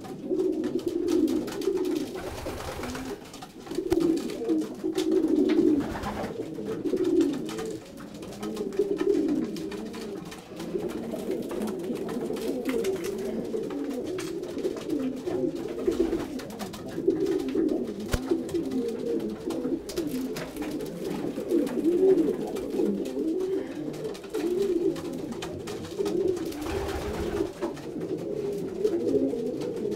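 Racing pigeons cooing continuously, several widowhood cocks at once with their calls overlapping, in a small loft.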